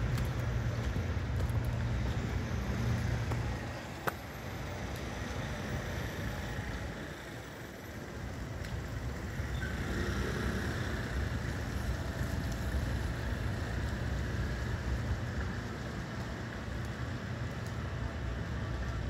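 City street traffic on wet pavement: a steady low rumble of cars idling and passing, with a single sharp click about four seconds in and a brief lull in the rumble a few seconds later.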